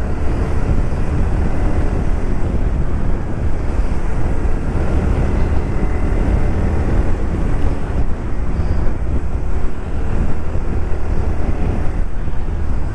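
Wind buffeting the microphone on a moving Bajaj Pulsar NS160 motorcycle, a steady heavy rumble. Under it are the bike's single-cylinder engine running and road noise, with faint shifts in engine pitch.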